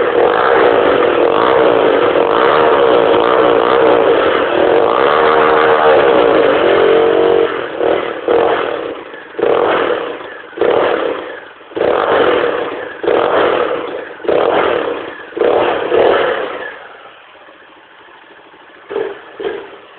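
Motorcycle engine revved and held high for several seconds, then blipped in a series of short revs about once a second. It drops back to a quieter idle, with two quick blips near the end.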